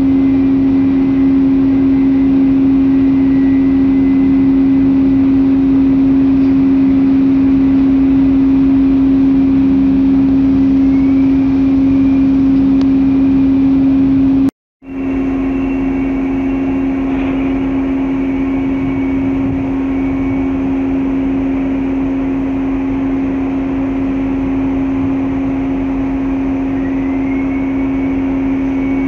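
Loud, steady hum of a container ship's machinery: one deep constant tone with fainter higher ones over a low rumble. It breaks off for a moment about halfway through, then carries on unchanged.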